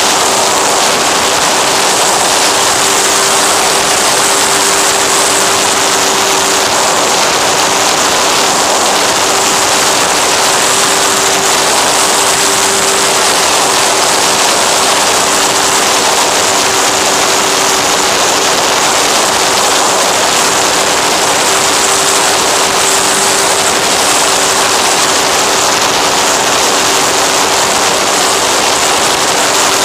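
Electric motor and pusher propeller of an FX-79 flying-wing RC plane running steadily in cruise, a constant hum of unchanging pitch, under a loud, even rush of wind over the onboard camera.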